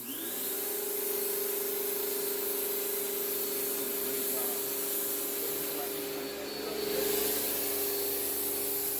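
Kärcher 1800 PSI electric pressure washer's motor and pump spinning up as the trigger is pulled, then running with a steady hum and faint high whine while the turbo nozzle sprays water in a continuous hiss.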